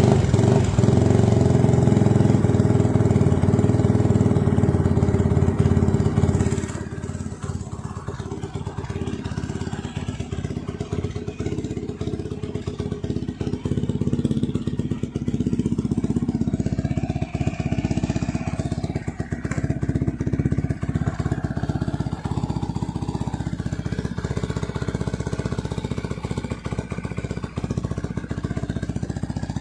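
Benelli Leoncino 250's single-cylinder four-stroke engine, breathing through its stock muffler, running just after starting. It is louder and faster for about the first six seconds, then drops to a lower, steady idle.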